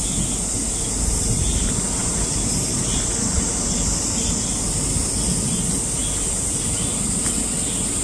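Steady high-pitched insect chorus, unbroken throughout, over a low rumbling noise.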